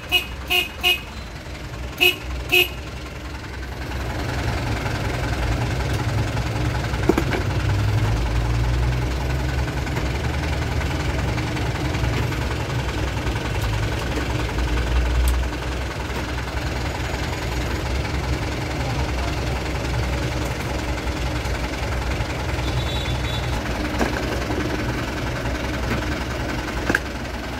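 Mitsubishi Colt Diesel truck horn giving a quick run of short toots in the first three seconds, as the horn circuit is tested, followed by a steady low rumble of the truck's 3.9-litre diesel engine idling.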